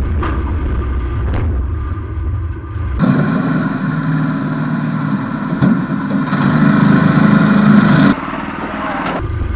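Predator 212 single-cylinder four-stroke engine in a VW Baja Bug running as the car is driven, heard louder and closer from inside the car from about three seconds in. The engine gets louder near the end, then drops back abruptly.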